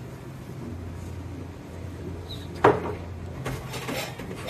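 Tableware sounds: one sharp knock a little past halfway, then lighter clinks near the end as chopsticks work in a hot-pot, over a steady low hum.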